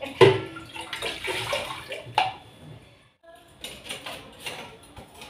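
Tap water running into a kitchen sink while dishes are washed, with sharp knocks of crockery against the sink. Just after three seconds the water noise stops, and then dishes clatter as they are set into a plastic dish rack.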